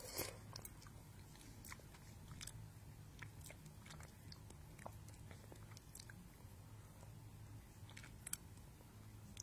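Faint chewing and mouth sounds close to the microphone, with scattered small clicks, over a low steady hum.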